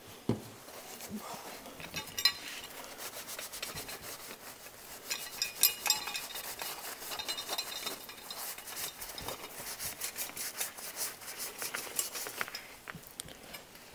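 Paper towel rubbing and scrubbing over a small metal motor-and-bracket assembly in quick, irregular strokes, wiping creosote off it, with a few light knocks as the part is handled.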